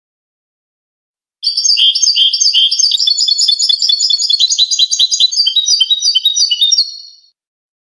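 European goldfinch singing one continuous phrase of rapid, high twittering notes, starting about a second and a half in and fading out about six seconds later. It is clean goldfinch song (cante limpio) of the kind played to tutor captive goldfinches.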